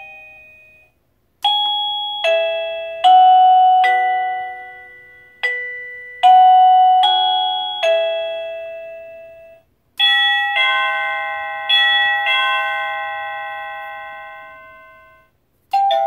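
Plug-in wireless doorbell receiver playing its electronic chime tunes: a melody of about ten bell-like notes, each fading away, then after a brief gap a slower chime of four ringing notes that die away gradually. Another tune starts right at the end.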